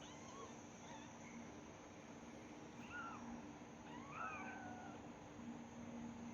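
Kittens mewing faintly: several short, high mews, the clearest two about three and four seconds in, over a steady low hum.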